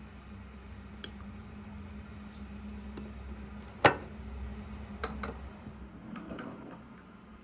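Light clinks of cutlery on a china plate, with one sharp click about four seconds in as a slice of cake is set down on the plate, over a low steady hum that fades out near the end.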